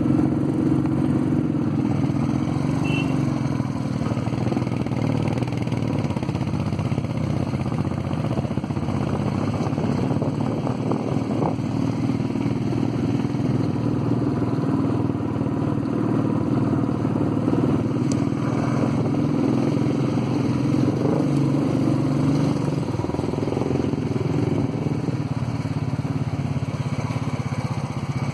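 Royal Enfield single-cylinder motorcycle engine running under way, heard from the rider's seat, its note rising and falling a little with the throttle over rough unpaved road.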